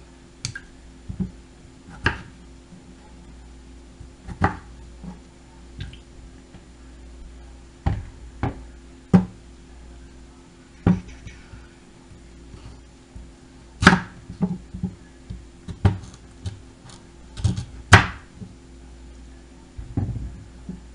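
Kitchen knife cutting potatoes and sweet potato on a cutting board: irregular sharp knocks of the blade striking the board, the two loudest about 14 and 18 seconds in, over a steady low hum.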